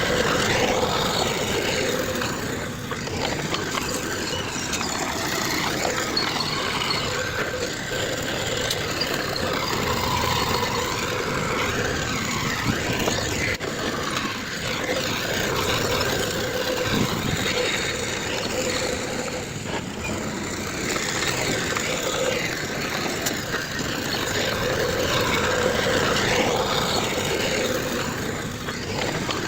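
Diesel engines of heavy earthmoving machinery, a bulldozer and dump trucks, running continuously, the loudness swelling and easing a little at times.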